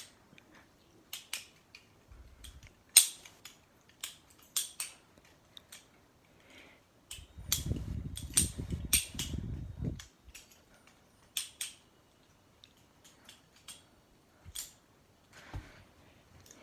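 Glidr balisong (butterfly knife) being flipped: sharp, irregular clicks and clacks as the handles swing round and strike each other. A low rumble of handling runs from about seven to ten seconds in.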